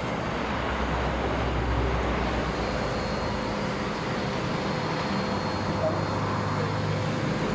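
Steady low rumble with an even hiss: background motor-vehicle noise.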